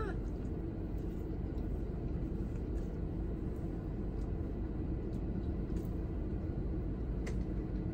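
Steady low rumble inside a car's cabin, with a few faint clicks scattered through it.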